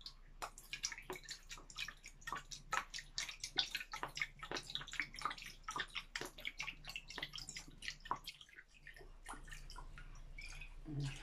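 Fish sauce poured from a bottle into a small plastic measuring cup, falling in a quick run of small drips and splashes that thins out near the end.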